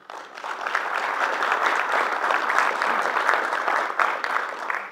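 Audience applauding: steady dense clapping that starts suddenly and cuts off near the end.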